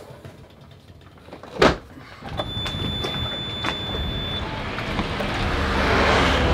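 A loud clunk, then the sailboat's inboard engine starts and runs steadily at idle. A steady high beep sounds for about two seconds just after it starts.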